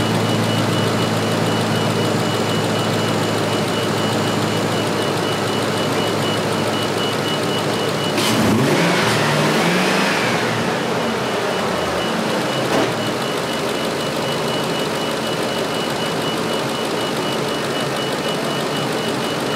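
Ford F350 pickup engine idling, revved up once about halfway through and then dropping back to idle. The rev is the test's 5-second rev for checking the new alternator's charging output. A faint steady high whine runs under the engine.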